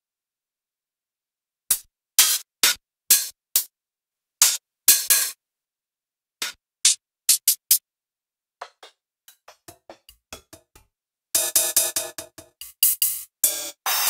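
Sampled cymbal hits from the reFX Nexus 4 'Demo Cymbals Menu' drum preset, played one at a time after a short silence. There are softer, shorter hits in the middle and a denser, fuller run of hits near the end.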